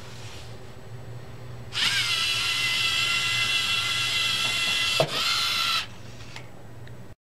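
LEGO EV3 robot's servo motors and gear trains whining steadily as the robot drives in reverse, starting about two seconds in and stopping after about four seconds, with a sharp click about five seconds in.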